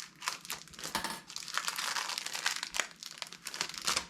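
Wrapper of a 1985 Topps baseball card pack being crinkled and torn open by hand: a dense, crackly rustle with many sharp little crackles that dies away near the end.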